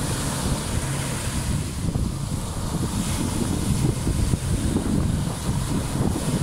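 Wind buffeting the microphone in uneven gusts, over the wash of small waves breaking on a sandy beach.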